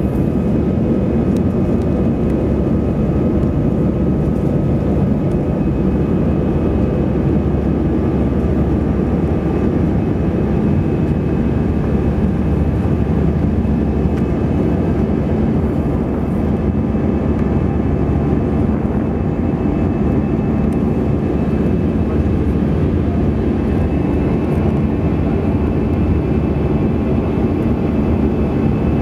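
Airbus A320 cabin noise in flight, heard from a window seat over the wing: the steady rumble of the turbofan engines and airflow, with faint steady high tones above it.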